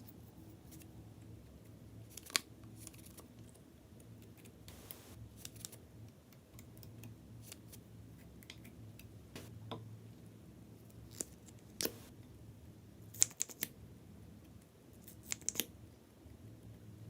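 A faint low hum with scattered sharp clicks or snips, a few seconds apart, some in quick pairs or clusters, the loudest about three quarters of the way through.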